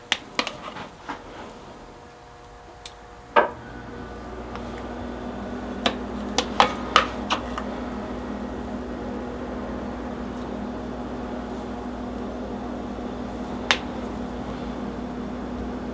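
Eggs cracked and separated by hand: sharp taps of eggshell against a bowl, in a cluster near the start, a louder knock about three seconds in, and another cluster about six to seven seconds in. From about three and a half seconds a steady hum from a kitchen appliance comes on and keeps running underneath.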